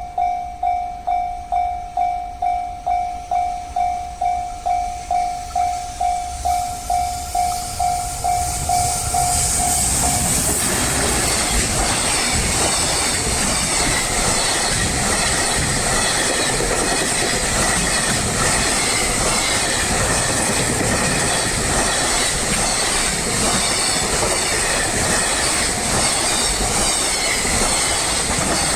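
Japanese level-crossing warning bell ringing about twice a second. About ten seconds in, a train runs over the crossing, and its steady rumble and clatter of wheels on rail drowns the bell out.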